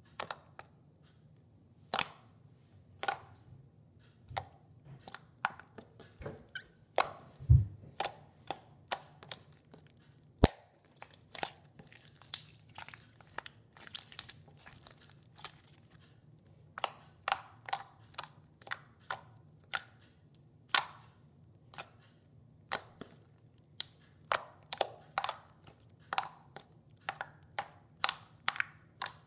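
Blue slime being poked and squeezed by hand, giving irregular sharp clicks and pops, roughly one to two a second, as air pockets trapped in the slime burst. Two louder, deeper knocks come close together about a quarter of the way through.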